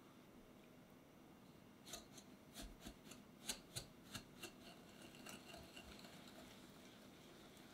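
A whisk stirring eggs and sugar in a glass bowl, tapping against the glass in a run of light, irregular clicks starting about two seconds in, then quieter stirring.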